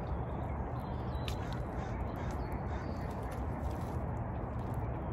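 A steady low rumbling noise with a bird calling faintly over it, once about a second in.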